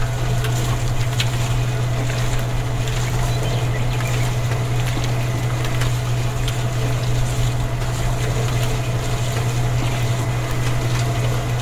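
Small electric motor driving a miniature concrete mixer drum: a steady low hum with scattered light clicks.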